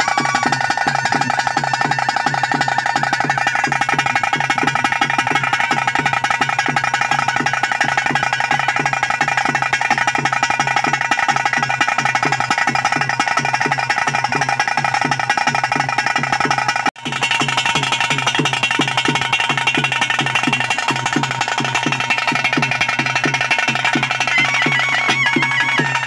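Ritual drum ensemble for a bhuta kola spirit dance: fast, even drumstrokes in a dense rhythm over a steady held tone. The sound drops out for an instant about two-thirds of the way through, then carries on.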